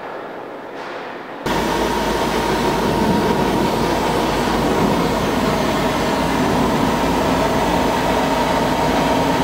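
A loud, steady roar with a low hum underneath. It starts abruptly about a second and a half in and cuts off sharply at the end.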